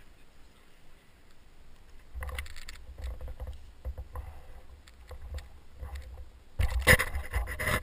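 Wind buffeting a handheld action camera's microphone, with a low rumble that swells about two seconds in and a louder gust of rumble and rustling handling noise near the end.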